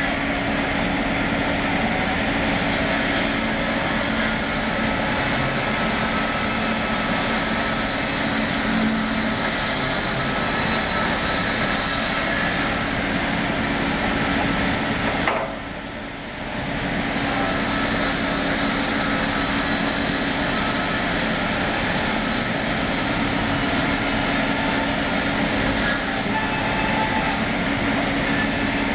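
ZMAX circular-saw woodworking machine running steadily, with a constant low hum and a spread of higher sawing noise as wooden slabs are fed through. The level dips briefly about fifteen seconds in.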